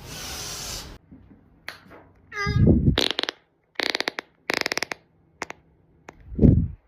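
A string of separate human farts: one falling in pitch about two and a half seconds in, two rapid sputtering ones around four to five seconds, and a low one near the end. A short burst of hiss comes first.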